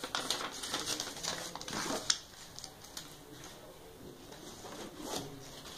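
Paper leaflets and cardboard laptop packaging rustling and crinkling as they are handled, with a sharp tap about two seconds in. Quieter handling follows, with another rustle near the end.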